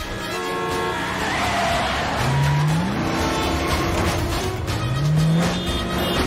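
Chase-scene traffic sound: vehicle engines rev up twice, their pitch climbing about two seconds in and again about five seconds in, over steady road noise with film score music underneath.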